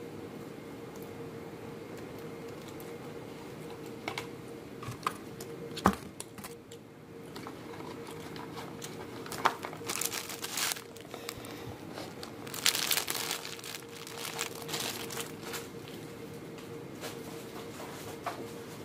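Plastic and paper food wrappers crinkling and rustling in short bursts as they are handled on a table, with a sharp knock about six seconds in. A steady hum runs underneath.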